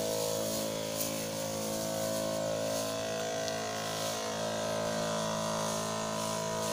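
Electric pump of a battery-powered knapsack sprayer running with a steady, even hum while its wand sprays the eggplant leaves.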